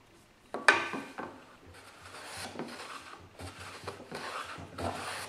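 Metal hand plane, run on its side against a bench hook, taking a series of rasping shaving strokes across the rough cross-cut end of a board to straighten and square it. A sharp knock comes as the first stroke starts, under a second in.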